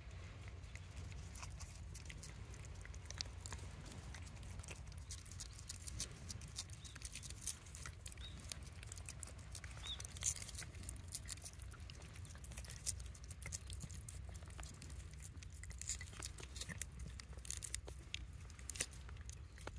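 Orange tabby cat licking a lickable paste treat from a squeeze tube: many quick, irregular small wet clicks and smacks over a low steady rumble.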